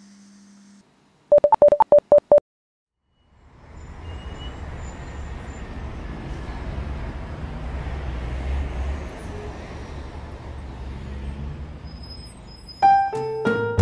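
About six quick, evenly spaced electronic beeps in just over a second, like a telephone signal tone. Then comes a long stretch of low, even rumbling noise, and piano music starts near the end.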